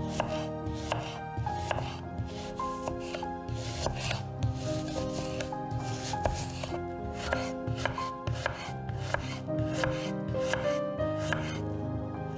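Kitchen knife slicing an onion on a wooden cutting board: a steady run of cuts, each ending in a light knock of the blade on the board, over background music.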